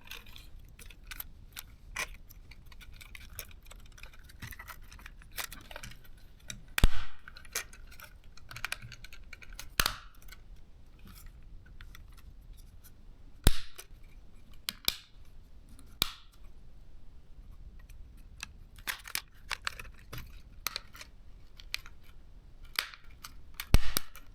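Sharp plastic clicks and snaps as the DJI Mini 3's upper plastic shell is pressed on and its clips catch, with light handling of small plastic parts between them. The snaps come irregularly; the loudest are about seven seconds in, about thirteen seconds in and near the end.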